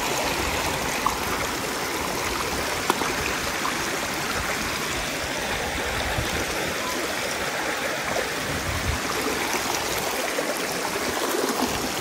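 Shallow stream water rushing steadily over rock, with a few brief clicks of plastic toys knocked against the rock.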